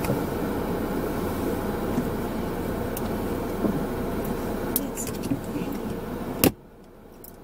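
Steady car-cabin noise: a low rumble from the running car. About six and a half seconds in there is a single sharp click, and the noise then drops away to a much quieter hum.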